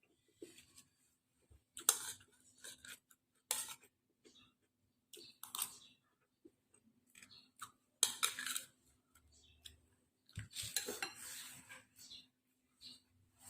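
Eating sounds: a spoon and fork clinking and scraping against a bowl of boiled instant noodles, in scattered short strokes with pauses, and two longer noisy stretches near the end.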